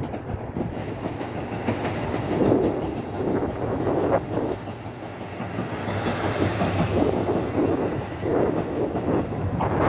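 KiHa E130 diesel railcar running on the Suigun Line: a steady engine and running drone, with the wheels clicking over rail joints now and then.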